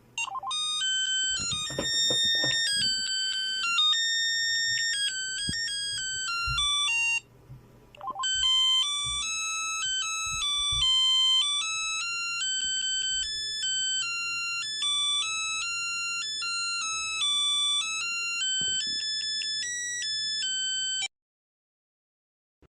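A smartphone ringtone melody of bright, high synthesized notes. It breaks off briefly about seven seconds in, resumes, and cuts off suddenly shortly before the end.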